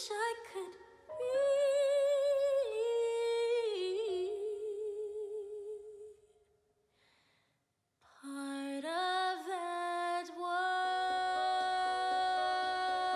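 A woman singing wordless held notes with vibrato. She pauses about six seconds in, then sings a rising phrase into a long sustained note.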